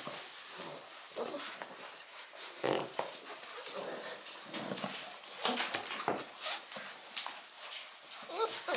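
Six-week-old shar-pei puppies at play: scattered short puppy noises and small clicks and scuffles as they move about.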